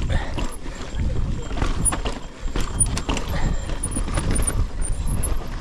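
Mountain bike riding down a rocky trail: a constant low rumble of tyres over stone and dirt, with frequent sharp clatters and rattles from the bike as it hits rocks.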